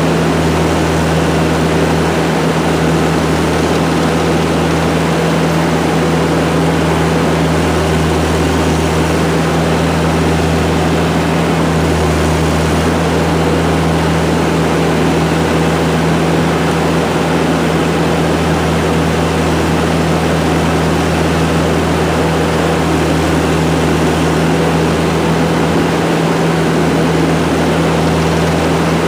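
ASV compact track loader's diesel engine running steadily at working throttle, a constant low drone with the lowest note swelling slightly now and then.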